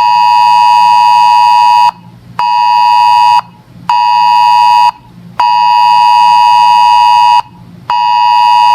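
Weather alert radio's buzzer sounding its alert ahead of an NWS message: a loud, buzzy electronic beep in a repeating pattern of one long beep and two short ones, with about half a second between beeps.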